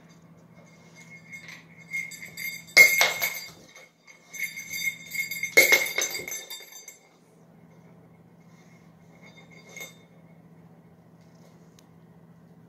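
A small jingle-bell toy ball jingling as a puppy paws and rolls it on a wooden floor, with two sharp knocks about 3 and 6 seconds in and a brief jingle again near 10 seconds. A low steady hum runs underneath.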